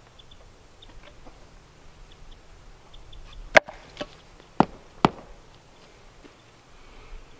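A handsaw being handled at a wooden footing form: a few faint ticks and rustles, then four sharp knocks in quick succession a little past the middle, the first with a short metallic ring.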